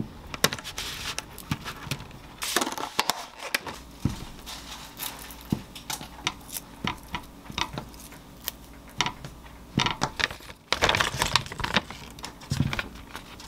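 Kitchen handling sounds as cherry tomatoes are picked from a plastic clamshell, stemmed and set into a wire-mesh strainer: many light clicks and taps with plastic crackling. A longer crinkle of a plastic wrapper being pulled off chicken-breast sausages comes near the end.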